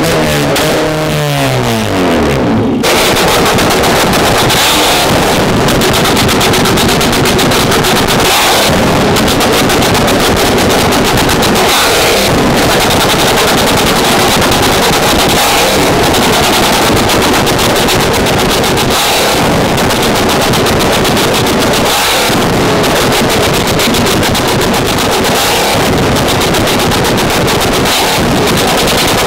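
An engine's revs fall away, then about three seconds in a Ford Mustang GT's V8 breaks into a rapid, continuous stream of exhaust cracks and bangs as it shoots flames from its tailpipes.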